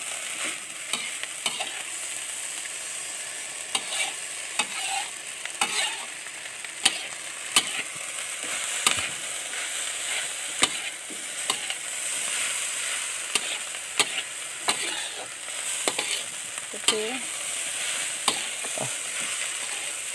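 Fried rice sizzling in a metal wok while a metal spatula stirs and tosses it, with sharp, irregular clinks and scrapes of the spatula against the pan.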